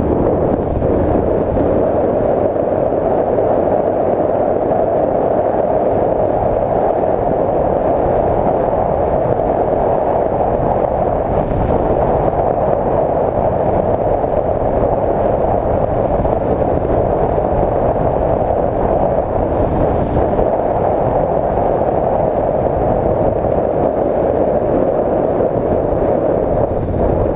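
Adventure motorcycle riding along a rough dirt track, heard from on board as a steady mix of engine and wind noise that stays even throughout.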